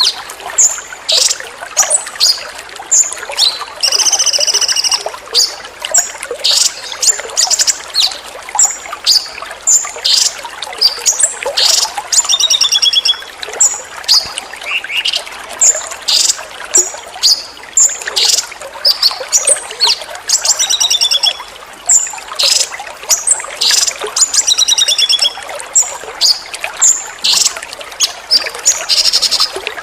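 Small songbirds giving rapid bursts of high chirps and short trills, many times a second, over steady trickling water: a bird-song training (masteran) recording.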